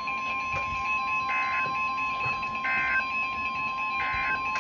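NOAA Weather Radio 1050 Hz warning alarm tone, one steady high tone, with electronic alarm beeping over it: a fast pulsing beep and three longer beeps about a second and a half apart. The tone marks the start of a new warning broadcast.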